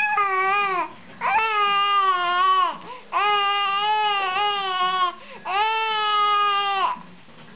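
Baby cooing contentedly in four long, drawn-out vowel sounds, each a second or two, steady in pitch and dipping at the end: happy vocalizing, not crying.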